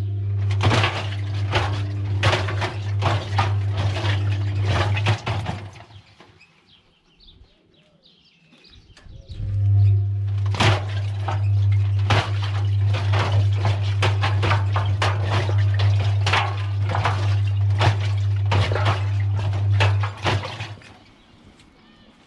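Washing machine drum turning in two runs, about five seconds and then about eleven seconds, with a pause between: the motor gives a steady low hum while the cubes and balloons tumbling inside knock and clatter against the drum.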